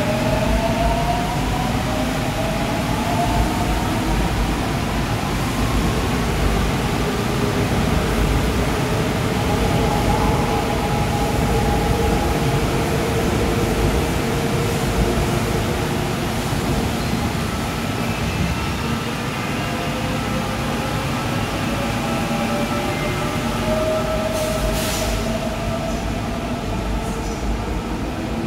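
Seoul Subway Line 4 electric train running through the station without stopping, with a steady rumble of wheels on rail. Over it, a whine glides upward in pitch near the start and again near the end.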